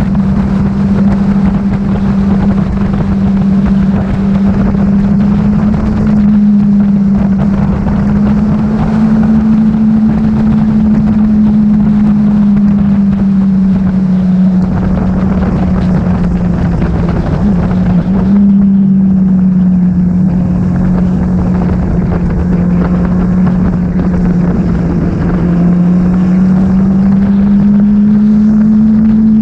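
Motorcycle engine running at steady highway speed under loud wind noise on the microphone. The engine note sags slowly, breaks briefly a little past halfway, then climbs again near the end as the bike speeds up.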